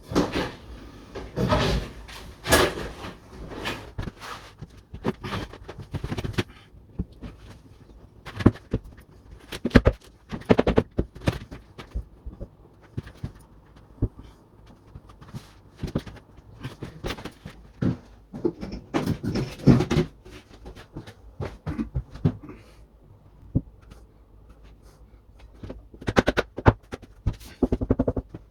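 Irregular knocks, clatters and scrapes of hand work on a plasterboard wall repair. The sounds come in clusters with short pauses between, and there is no steady whine of a running grinder.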